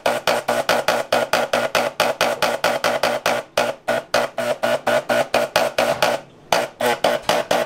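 Handheld electric spray gun fired in rapid short bursts, about five a second, speckling chocolate with green colouring, with two brief pauses.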